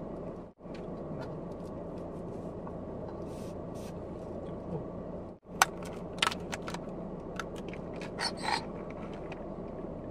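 A plastic straw pushed down through a plastic iced-coffee cup lid and worked around in it, making a run of short scrapes and clicks, the sharpest about halfway through. Under it a steady low hum of the car cabin.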